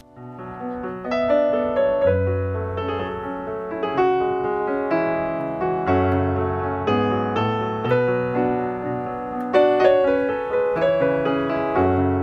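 Piano music: a melody of single notes and chords over low bass notes.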